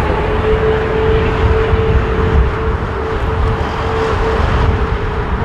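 Airbus A380's four Rolls-Royce Trent 970 turbofan engines on the take-off roll: a loud, steady roar with one steady mid-pitched tone held in it.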